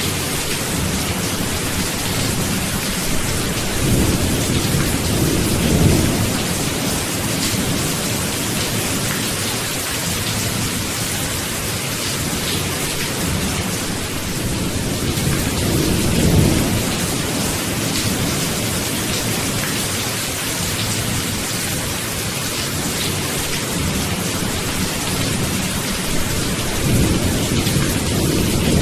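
Steady heavy rain with thunder rumbling low three times, swelling and fading over a few seconds each.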